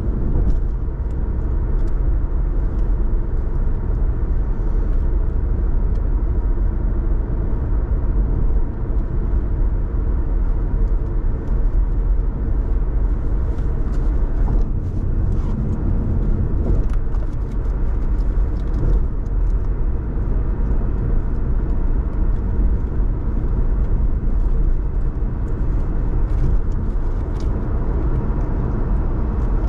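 Car driving on city roads: a steady low rumble of tyre, road and engine noise, with faint ticks and clicks here and there.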